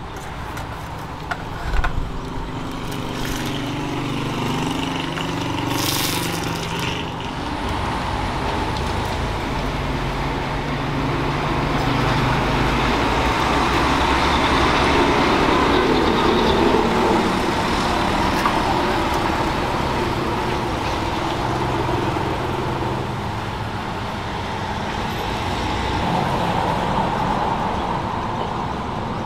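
A motor running steadily, its low pitch drifting up and down, with a sharp knock about two seconds in.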